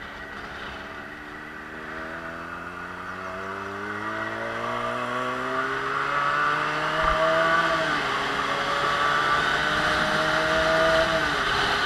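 Motorcycle engine accelerating under load, its pitch climbing steadily and dropping at an upshift about eight seconds in, then climbing again to a second upshift near the end. Wind rush grows louder as speed builds.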